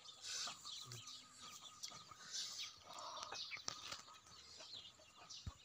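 Faint birds chirping, scattered short high calls.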